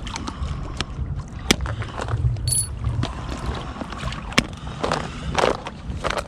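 Waves lapping at a concrete breakwall and wind rumbling on the microphone, with sharp clicks and rattles from a clear plastic tackle box of lures being handled, and a brief high squeak about halfway through.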